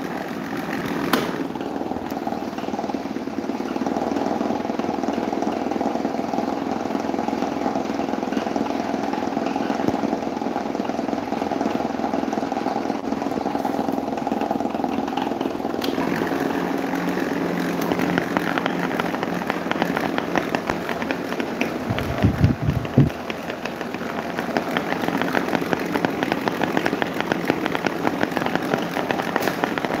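Several small electric fans, desk fans and a box fan, running at once: a steady whir with a fine, fast rattle. A few loud bumps come about three-quarters of the way through.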